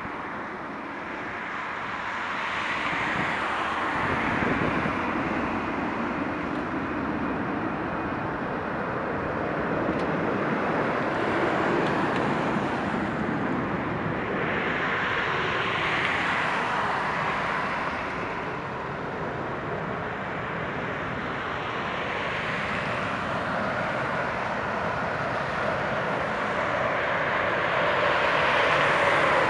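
Boeing 737-800's CFM56-7B jet engines on final approach, a steady rushing jet noise that grows louder overall as the airliner comes nearer, loudest near the end.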